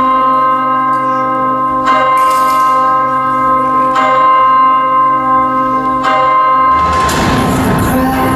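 A deep bell in the performance's backing track, struck four times about two seconds apart, each stroke ringing on until the next. Near the end, music comes in over the last ring.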